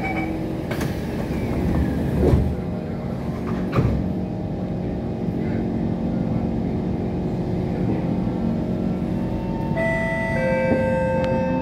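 Inside a C151 metro train car: the saloon doors and platform screen doors close with two thuds about a second and a half apart, over the steady hum of the train standing at the platform. Near the end the traction motors start up with a whine of several steady tones and a rising tone as the train begins to move off.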